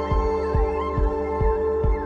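Background music with a steady low beat a little more than twice a second, held chords, and a gliding lead melody over them.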